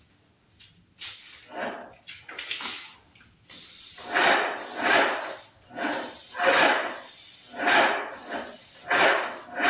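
Graco airless paint sprayer laying down oil-based primer. A steady spray hiss starts about three and a half seconds in, over the sprayer's pump working in repeated, uneven pulses.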